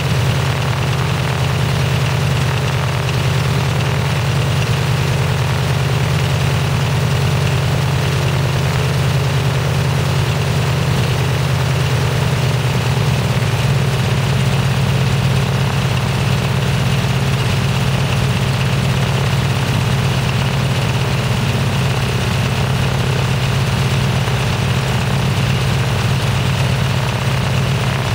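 Cessna 195's Jacobs radial engine idling steadily on the ground, back running after 26 years in storage. Its pitch drops slightly about halfway through.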